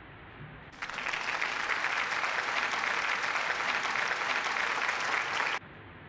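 Applause, a dense crackle of many hands clapping, starting abruptly about a second in and cutting off abruptly near the end.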